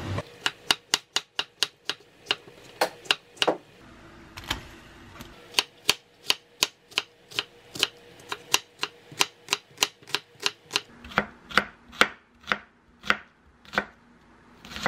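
Kitchen knife slicing an onion on a wooden cutting board: a steady run of sharp chops, about three a second, with a short break about four seconds in.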